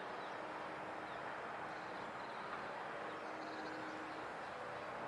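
Steady outdoor background noise of distant traffic hum, with a few faint bird chirps.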